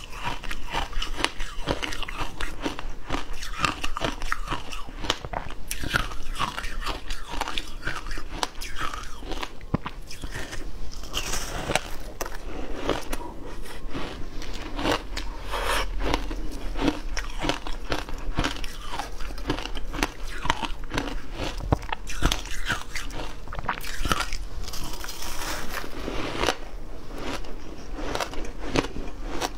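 Close-miked crunching and chewing of crumbly frozen shaved ice coated in passion fruit pulp: a dense, continuous run of crisp crunches with wet mouth sounds.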